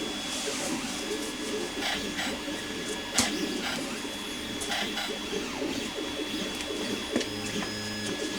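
A small electric motor running steadily, with several sharp clicks and taps of handling along the way.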